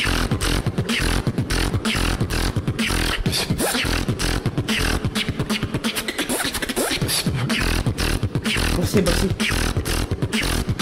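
Solo human beatboxing: a fast, dense beat of sharp clicks and snare-like hits over a continuous deep bass, all made with the mouth and throat.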